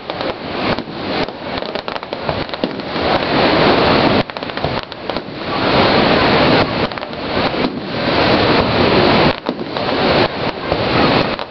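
Fireworks display: aerial shells bursting with dense crackling and popping, loud throughout and coming in several swells.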